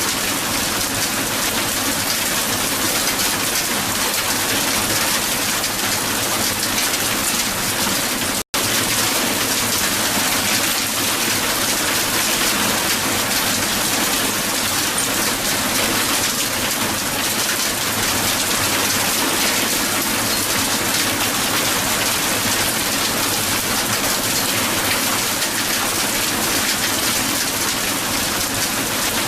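Strong hail falling steadily on the ground, a dense, even patter of countless small ice impacts, with a split-second dropout about eight seconds in.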